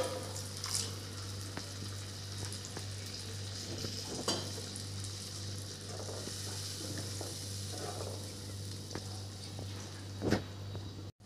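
Onion-tomato masala sizzling in a kadhai just after a little water has been added, with a wooden spatula stirring it and knocking against the pan a few times, loudest right at the start. A steady low hum runs underneath.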